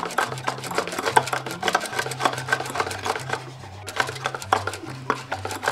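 Metal whisk rapidly clattering and scraping against a ceramic bowl while whipping thick dalgona coffee (instant coffee, sugar and hot water) that is nearly golden brown. Background music with a low bass line plays underneath.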